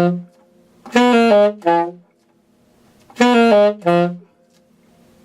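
Alto saxophone playing a short phrase twice: a few notes stepping down, each time landing on a held low D played without the octave key.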